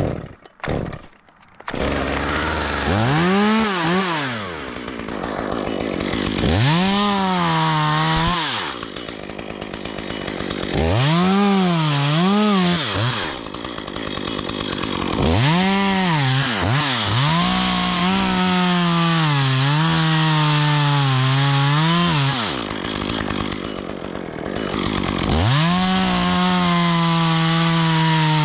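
Gasoline chainsaw revved in repeated bursts, its pitch rising to full throttle and dropping back, then held at full speed for several seconds at a time while cutting wood.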